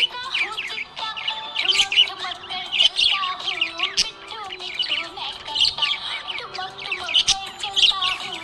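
Budgerigar chirping and warbling in quick, dense runs of high chirps, over a background song with a stepped melody.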